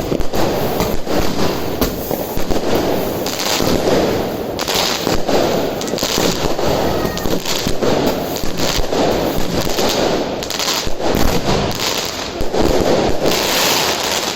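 Helios 'Swords of Fire' firework going off: a dense, continuous stream of crackles and pops with a steady rushing noise under them, swelling louder at times.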